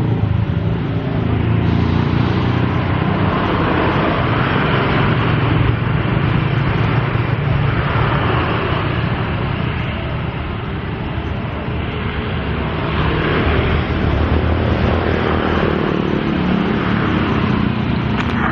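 Motor-vehicle traffic running close by: a steady engine drone under road noise that swells and fades every few seconds as vehicles pass.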